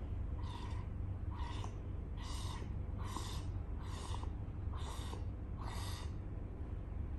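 A child blowing puffs through a straw into a bowl of soapy water, making breathy bubbling puffs. There are about seven, a little under a second apart, and they stop near the end.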